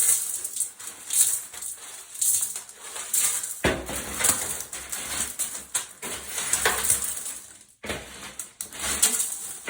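Small pieces of shattered tempered glass from a shower door clinking and scraping as they are swept up, in repeated strokes about once a second.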